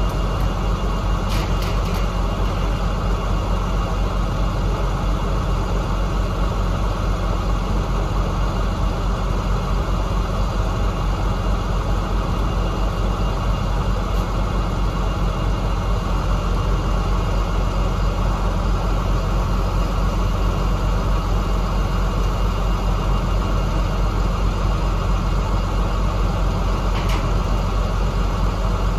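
KamAZ truck's diesel engine running steadily, with a couple of faint clicks about a second and a half in and near the end.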